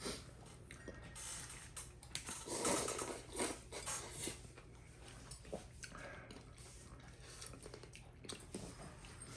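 Close-up eating sounds of noodle soup: chewing and slurping, with scattered small clicks and a louder slurp about three seconds in.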